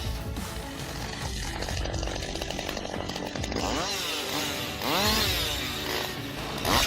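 Chainsaw running, revved up and down several times in the second half.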